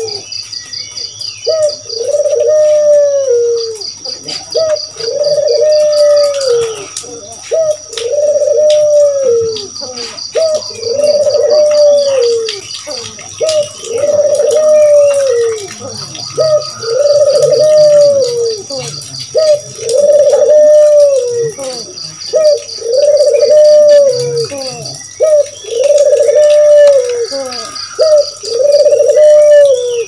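Barbary doves (puter) cooing over and over, each call a low arching coo, one about every two seconds. Behind them run a faint steady high tone and short runs of fast high ticking.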